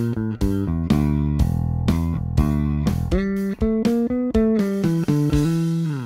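Solo electric bass strung with GHS Boomers nickel-plated steel roundwound strings (45–125, medium-light), played fingerstyle. It plays a groove with fills that climb higher up the neck in the middle, with several sliding notes, and ends on a note sliding down.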